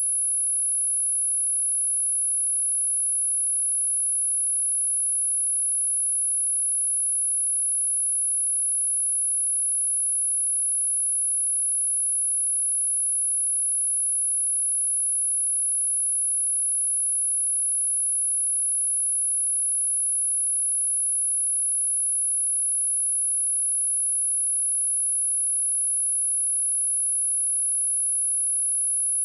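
A steady, unbroken pure sine tone at 10567 Hz, a single high-pitched whistle-like test tone with no other sound.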